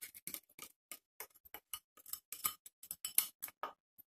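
Wooden spoon tapping and scraping against a small glass bowl, knocking salt out of it: a quick run of light ticks, about six a second, that stops shortly before the end.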